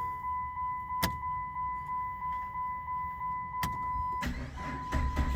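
A car's steady high-pitched electronic warning tone sounds with the key on, broken by two sharp clicks. Near the end the engine starts to crank, with a low rumble that grows louder.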